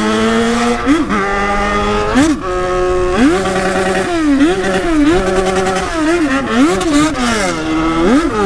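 Yamaha XJ6's inline-four engine being ridden hard and revved up and down. The pitch holds for a moment, then rises and falls sharply again and again, several times a second in the second half. Very loud.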